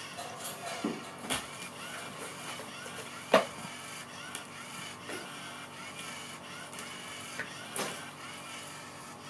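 Small electric motor of a cat teaser toy whirring steadily as it swings its wand, with a few light knocks. About three seconds in there is one loud thump as a plush cat bed topples over onto the cat.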